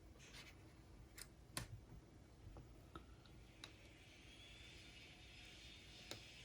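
Near silence with a few faint, sharp clicks from the buttons and casing of a Sony MZ-RH1 MiniDisc Walkman as it is switched on for a first test. A faint high whir comes in about four seconds in.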